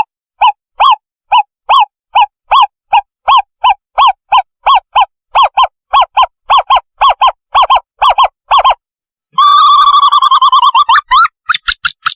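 Owl call played as a decoy lure: a long series of short, clear hooting notes, about two to three a second and gradually quickening. About nine seconds in it breaks into a rapid chattering trill, followed by a few higher, quicker notes near the end.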